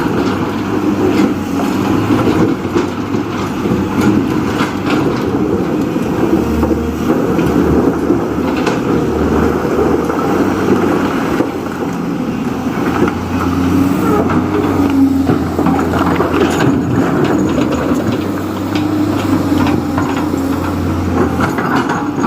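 Diesel engine of heavy construction machinery running steadily, with its low hum growing stronger twice, for a few seconds each time.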